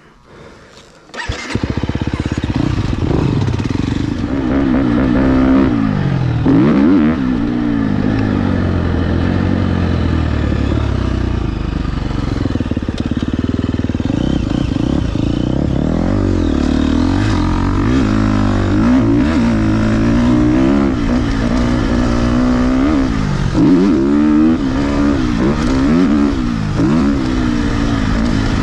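KTM 250 XCF four-stroke single-cylinder dirt bike engine under way, revving up and dropping back again and again as the rider works the throttle and shifts. The engine comes in loud about a second in.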